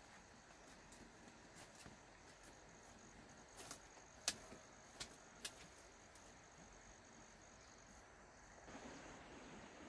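Near silence with a faint, steady high insect trill, broken by four or five sharp clicks around the middle.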